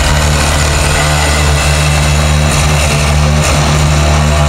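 DeWalt cordless oscillating multi-tool with a grout removal blade running steadily, grinding old grout out of a joint between shower wall tiles.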